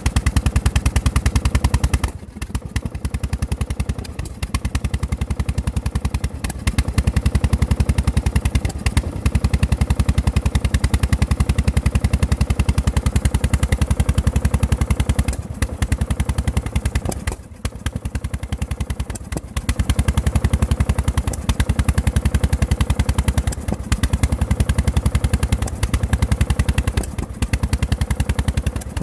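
John Deere LT1000 lawn tractor engine running with a rapid, even firing beat that stumbles and drops out several times. This is sputtering, which the owner blames on a bent valve, under a very low knock that he thinks sounds like a connecting rod.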